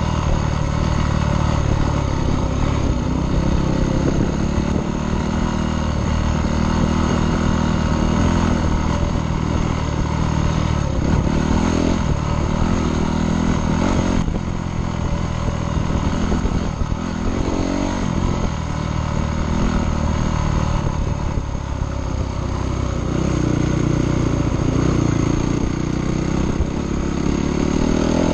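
Dirt bike engine running while riding a trail, its pitch rising and falling repeatedly with the throttle.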